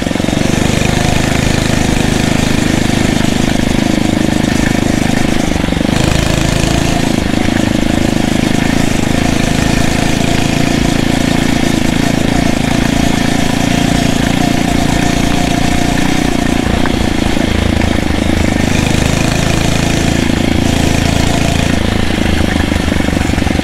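Phatmoto Rover's 79cc four-stroke engine with its governor removed, running steadily at an easy cruise as the motorized bicycle is ridden.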